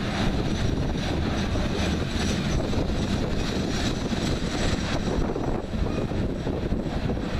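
Loaded coal hopper cars of a freight train rolling past, a steady rumble of steel wheels on the rails.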